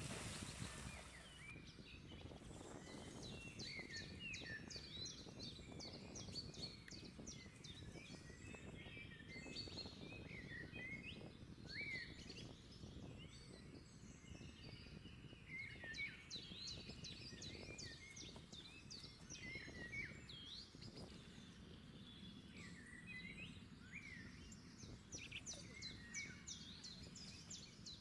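Small birds chirping and whistling many quick calls, over a low rush of water stirred by people wading; a louder splash of churned water right at the start.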